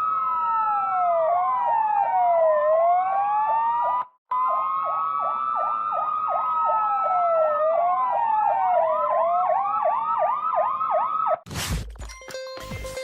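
Electronic police siren sounding a slow wail that sweeps down and back up, overlaid with a fast yelp of quick rising sweeps. It drops out for a moment about four seconds in, then stops near the end, giving way to sharp clicks and brief steady tones.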